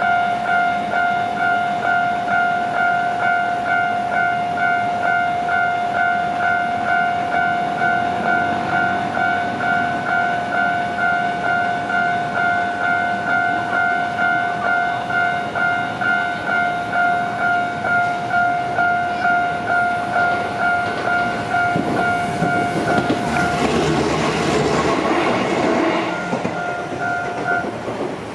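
Level-crossing warning bell ringing in a steady, rapid two-tone rhythm, about two strikes a second. Near the end a Shizuoka Railway A3000 series electric train passes, its wheel and rail noise rising loud and briefly drowning the bell, and the bell stops shortly before the end.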